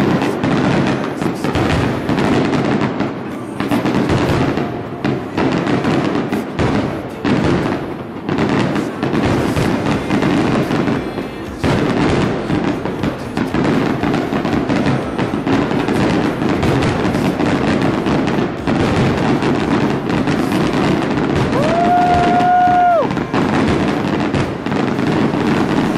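Aerial fireworks display: a rapid, continuous barrage of bangs and crackling from shells bursting. Near the end a steady held tone sounds for about a second over the bangs.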